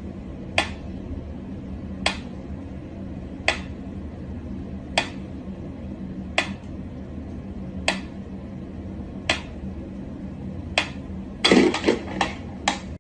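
Mechanical pyramid metronome ticking slowly and evenly, one sharp tick about every second and a half. Near the end comes a short flurry of softer knocks and thumps as a cat jumps back on the wooden floor.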